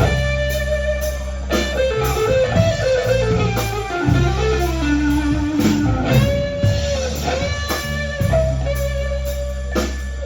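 Live blues band playing an instrumental break: an electric guitar plays a lead of held, bent single notes over bass and drums.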